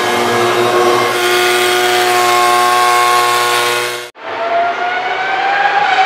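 A single-seater racing car's engine running steadily on the grid. After a sudden cut about four seconds in, several racing cars accelerate through a corner, their engine pitch rising.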